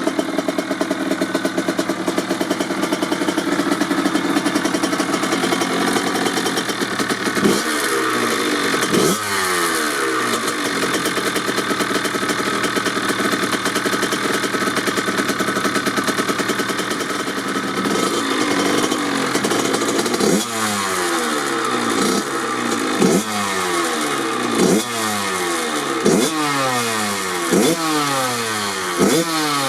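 1997 Kawasaki KX80's single-cylinder two-stroke engine, with a DEP silencer, running steadily, then blipped on the throttle. Two quick revs come about a quarter of the way in, and in the last third a string of blips about once a second, each rising sharply and falling back.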